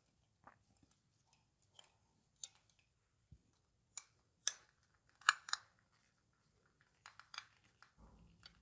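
Faint, scattered clicks and small scrapes of a screwdriver and copper wire ends being worked at the terminal screws of a plastic lamp holder, a few separate ticks spaced a second or so apart.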